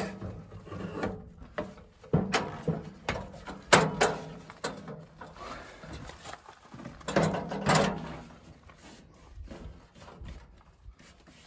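Steel RV entry step being shifted and pushed into place against the doorway's floor rail: a series of separate knocks and clicks, with a longer burst of noise about seven seconds in and softer knocks near the end.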